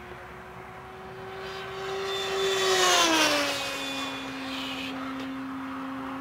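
Electric RC airplane with an AXI 5330 outrunner motor and a 16x16 APC propeller making a high-speed pass. A steady propeller whine swells to its loudest about three seconds in, drops in pitch as the plane goes by, and carries on at the lower pitch.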